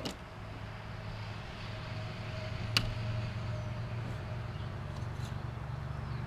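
Steady low mechanical hum, with a sharp click about three seconds in.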